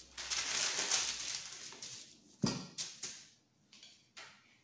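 A sheet of baking paper rustling and crinkling as gloved hands smooth it out. Then come a few knocks on the counter, the loudest a thump about two and a half seconds in.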